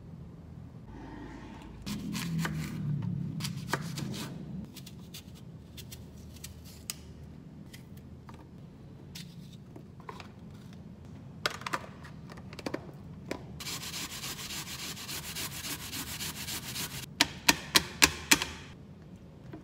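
Kitchen food-prep sounds: a wooden spoon stirring and scraping in a ceramic mug, then scattered knife clicks as an apple is cut and peeled. Near the end comes about three seconds of steady rasping as apple is grated on a plastic grater over a bowl. This is followed by about five sharp knocks, the grater being tapped against the bowl.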